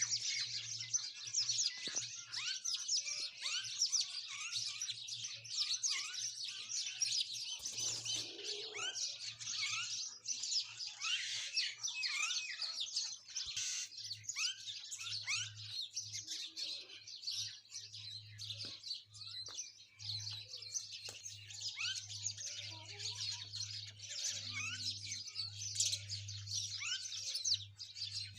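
Dense chorus of sparrows and common mynas, many short chirps and calls overlapping without pause.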